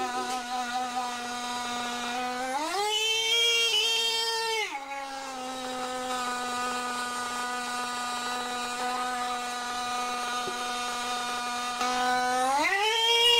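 Motorcycle disc horn sounding continuously while submerged in water: a steady, buzzing tone with many overtones. Its pitch jumps higher twice, for about two seconds a few seconds in and again briefly near the end, then drops back.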